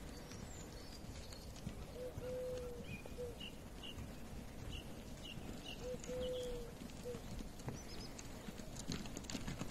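Outdoor field sound of a horse moving, its hooves knocking on the ground. A low three-note call, short then long then short, comes twice, about two seconds in and again about six seconds in.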